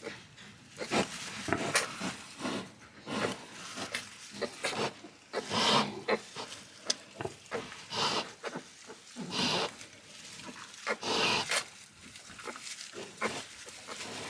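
A newborn piglet shuffling and crawling in dry wood shavings, giving a scratchy rustle throughout. Short pig calls are heard now and then.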